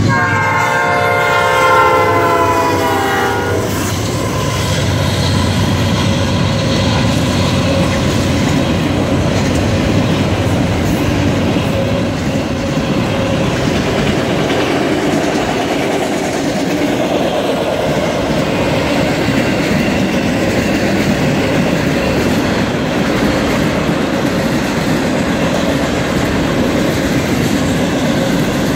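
A Norfolk Southern GE C40-9W diesel locomotive sounds its air horn, a chord of several notes lasting about three and a half seconds as it passes. This is followed by the steady, continuous noise of a long freight train's cars rolling past on the rails.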